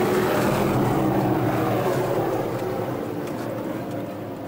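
A steady engine hum that swells and then slowly fades, as of a machine passing by.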